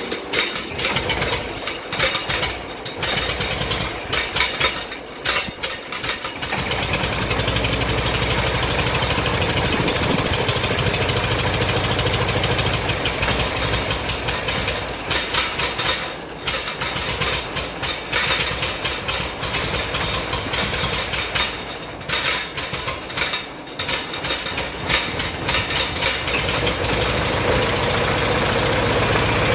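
Fordson Major E27N's four-cylinder side-valve engine starting on its newly fitted distributor and battery-coil ignition. It fires unevenly for the first several seconds, then settles into steady running, dipping briefly a few times.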